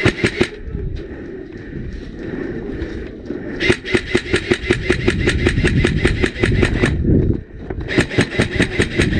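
LCT AK-12 electric-blowback airsoft rifle firing full-auto at about ten shots a second: a short burst at the start, a long burst of about three seconds near the middle and a shorter burst near the end.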